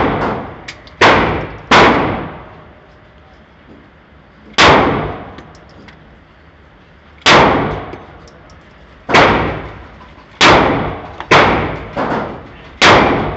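Handgun fired eight times at an uneven pace, the shots roughly one to three seconds apart. Each is a sharp, very loud report with an echoing tail from the concrete lanes of an indoor range.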